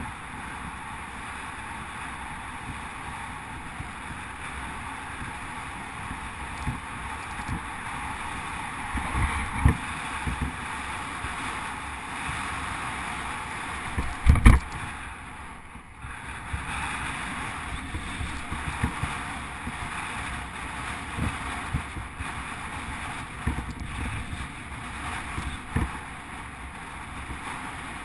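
Bicycle riding along a tarmac lane: a steady rush of wind and tyre noise, with scattered low thumps as the bike goes over bumps, the loudest about halfway through.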